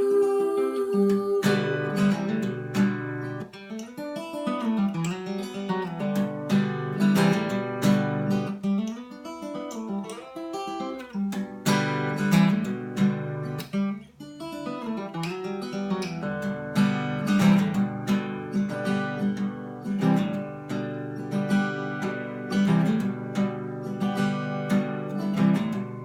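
Acoustic guitar playing an instrumental break in a folk song: a steady run of plucked and strummed notes with some sliding pitches.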